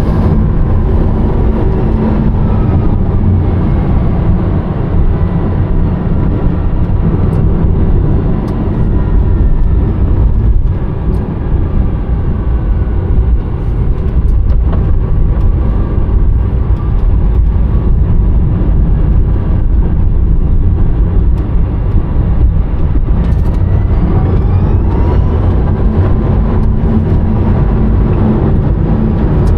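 Rimac Nevera electric hypercar heard from inside the cabin: heavy, steady road and wind rumble. Over it a faint electric-motor whine falls in pitch early on and rises again about three quarters of the way through.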